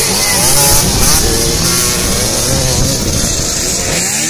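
Several two-stroke motocross bikes accelerating past, their engines revving up and dropping back as they shift, several engine pitches overlapping.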